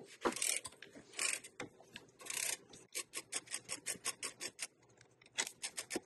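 Socket ratchet clicking as a bracket bolt is backed out. First come a few short rasping runs of fast clicks, then from about halfway a string of quick single clicks, about five a second, with a brief pause near the end.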